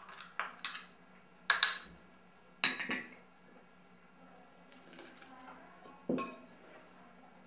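A kitchen utensil clinking against a glass bowl as ingredients are put in and mixed: several sharp clinks in the first three seconds, then one more about six seconds in.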